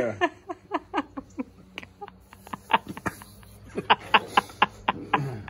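People laughing hard in short, breathless, cackling bursts, many of them sliding down in pitch, with a steady low hum underneath.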